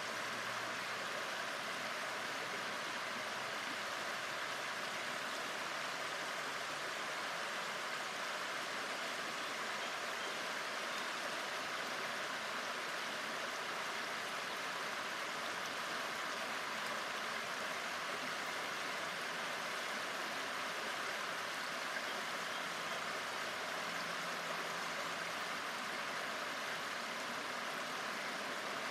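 Shallow river flowing over a stony riffle: a steady rushing of water.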